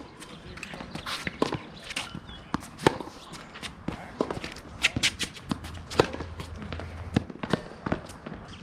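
Tennis balls popping off racket strings and bouncing on the court, a sharp knock every half second to a second, with shoe scuffs between them.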